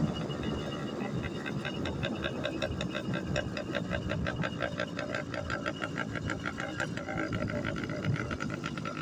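Two-stroke engine of a motorized bicycle running under way, warmed up, with its exhaust baffle removed; a quick, even run of firing pulses that becomes more distinct about two seconds in.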